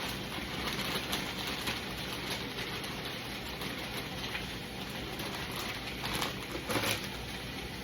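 Onions caramelizing in a pan, giving a steady sizzling hiss. Two short clatters come about six and seven seconds in.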